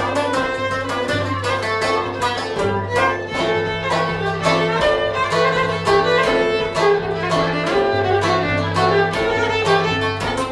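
Live trio playing a traditional Cypriot tune: violin carrying the melody over a steady beat on a frame drum, with a plucked string instrument accompanying.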